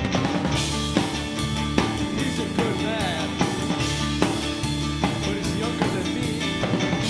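Noise rock band recording: a drum kit keeping a steady beat under dense, sustained pitched instruments, with a few wavering bent notes in the middle.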